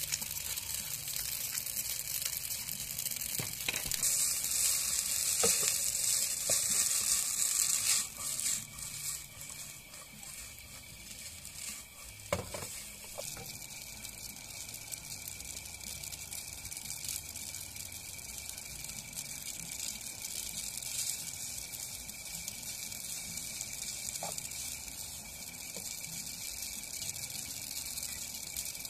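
Spaghetti and sausages sizzling in a frying pan on a camp stove as they are stir-fried with a wooden spatula. The sizzle is loudest a few seconds in, then settles to a steadier, quieter hiss, with a few knocks of the spatula against the pan.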